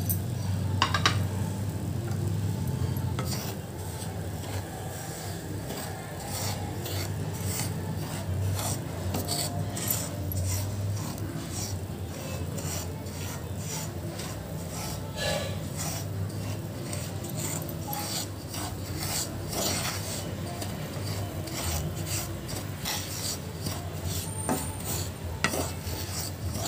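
Spatula stirring and scraping dry semolina (rava) across a pan as it is dry-roasted: a continuous run of irregular gritty rasping strokes.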